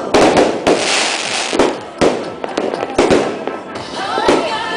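Fireworks going off: repeated loud bangs with dense crackling between them.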